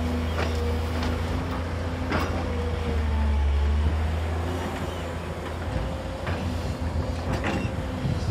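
JCB tracked excavator's diesel engine running under load with a steady low drone and a whine, while its arm swings and the bucket is lowered into the pit. A few sharp knocks sound along the way, and the drone swells about three seconds in before easing off.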